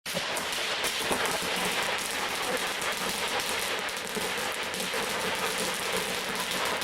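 Fireworks crackling: a dense, unbroken rattle of many small pops that starts suddenly and keeps going steadily.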